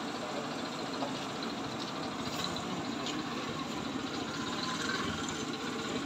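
Steady street traffic noise with idling engines, and a few faint light clicks.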